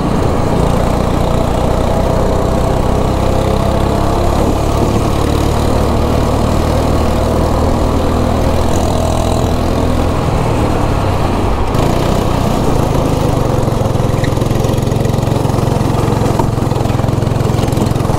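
Kart engine running under way, heard from onboard the kart, a steady small-engine drone whose pitch changes about two-thirds of the way through.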